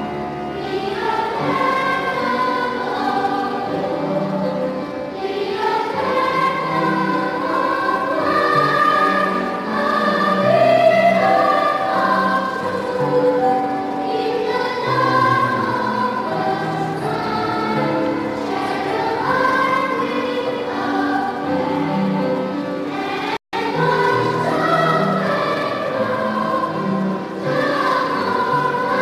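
A choir singing a song, with a momentary dropout in the sound about two-thirds of the way through.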